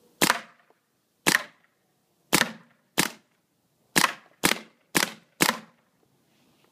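Bob Long Victory V1 poppet-valve paintball marker firing eight shots, each a sharp pop with a short ring. The first four come about a second apart, and the last four are quicker, about two a second.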